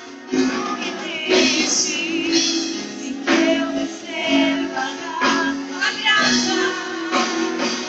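Live church band playing a Portuguese gospel song, with a female lead vocalist singing the melody over the accompaniment.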